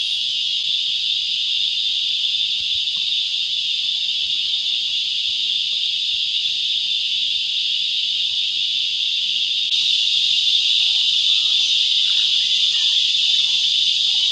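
A steady, high shrill chorus of insects, continuous and unbroken, growing a little louder about ten seconds in.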